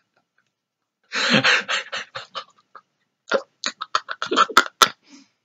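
A man's mock sobbing: a long breathy wail about a second in, then a string of short, choppy sobs and gasps, with two sharp clicks near the end.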